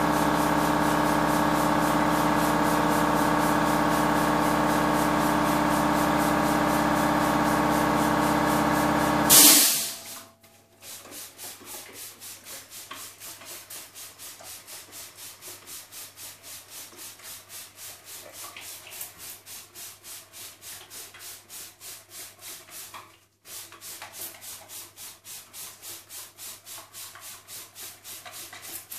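A steady machine hum runs for the first nine seconds or so, then stops with a brief loud burst. After that a hand trigger spray bottle is pumped in an even rhythm, about two to three sprays a second, with a short pause about 23 seconds in.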